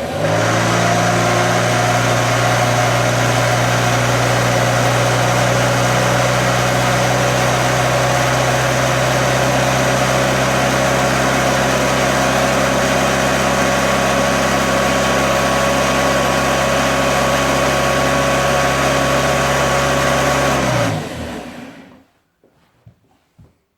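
Hoover 119 upright bagged vacuum cleaner switched on, its motor spinning up and running steadily with the brush bar fitted, then switched off and winding down about 21 seconds in. It doesn't sound too healthy; the owner thinks some of the noise is the brush bar, and its bearings have a little movement.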